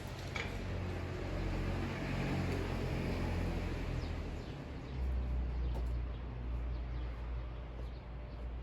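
Steady low mechanical hum from an old electric railcar's onboard equipment. The hum grows stronger about five seconds in, with faint high squeaks over it.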